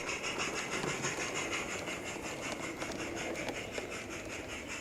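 45mm gauge garden-railway model train running along the track: a steady rolling rattle of small wheels on rail with a faint, fast, even clicking.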